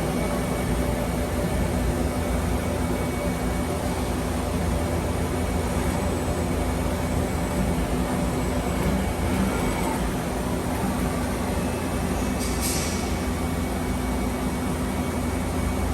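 Steady hum and rumble of a running Mazak Multiplex 6200Y CNC turning center, with a brief hiss about three-quarters of the way through.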